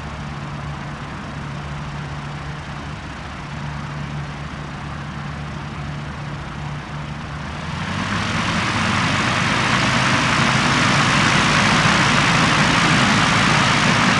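Aircraft engine idling with a steady low hum, then opening up to high power about eight seconds in, the noise rising and holding loud.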